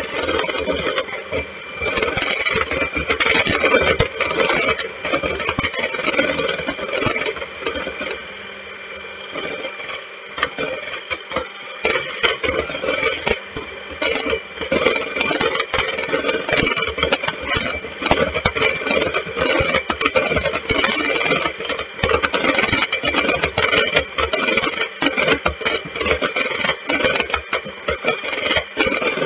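Electric hand mixer running, its beaters whipping egg whites in a stainless steel bowl, with a steady motor whine and a constant clicking rattle of the beaters against the metal bowl. It goes quieter for a few seconds about a third of the way in, then runs on loud. The whites are being beaten toward stiff peaks.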